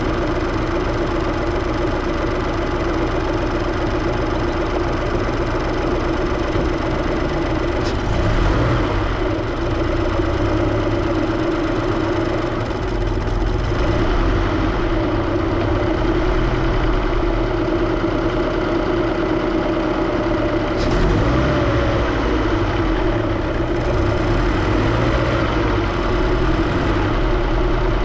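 Supercharged Scion FR-S flat-four engine running steadily in the engine bay, with a strong steady mid-pitched tone over the engine note. It is making an unexplained noise that the owner says varies with load, with no metal glitter in the oil.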